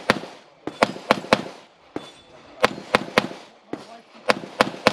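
Pistol fired in rapid strings of three shots about a quarter second apart, with short pauses between the strings.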